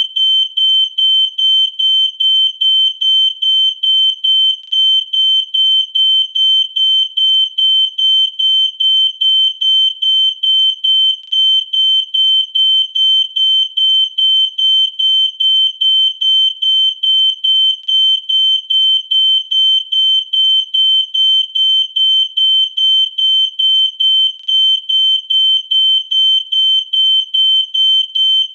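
Smoke alarm's piezo sounder beeping: a shrill, high-pitched tone in short, evenly spaced beeps, about two to three a second, without a break.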